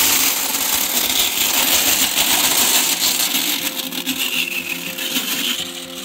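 Dried maize kernels poured in a steady stream into a feed trough, a loud continuous rattle and hiss of grain that starts abruptly and tails off near the end.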